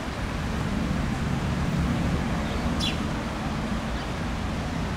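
Steady low rumble of distant city traffic, with a brief high squeak about three seconds in.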